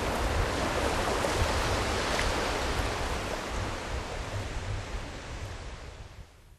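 Steady rushing noise of water at a shallow sandy shoreline, with a low wind rumble. It fades out over the last couple of seconds and then cuts off.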